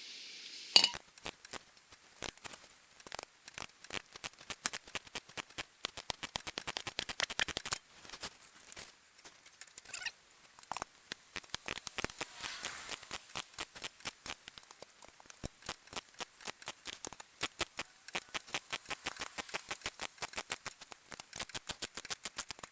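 Ratcheting wrench clicking in quick runs of strokes as it works a seized sway bar link nut off, with short pauses between strokes; the nut is turning slowly and stiffly.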